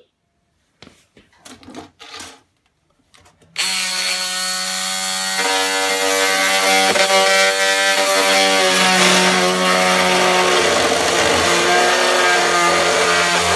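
Cordless oscillating multi-tool cutting lengthwise through 85 mm PVC stormwater pipe. A few light knocks come first; about three and a half seconds in the tool starts and runs loud and steady, its pitch shifting a little as the blade bites into the plastic.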